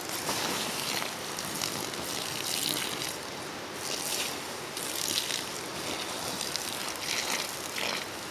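Water poured onto the hot ashes and coals of a smouldering campfire, hissing and sizzling as steam billows up, in repeated surges.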